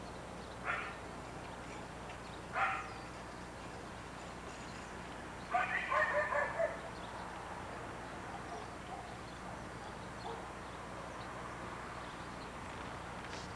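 A dog barking: two single barks in the first few seconds, then a quick run of about five barks about six seconds in.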